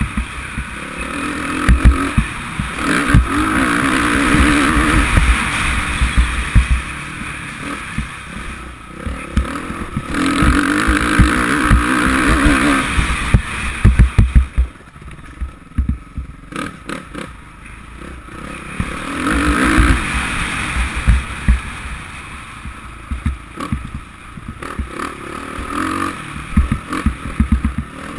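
Suzuki RM-Z450's single-cylinder four-stroke engine under way, revving up and dropping back again and again as the throttle opens and closes while riding motocross. Wind buffets the helmet-mounted microphone, and short knocks come from the bike hitting the rough ground.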